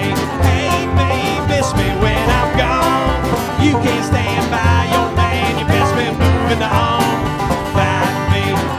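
Live country band playing an instrumental break with acoustic guitar, pedal steel guitar and upright bass over a steady beat.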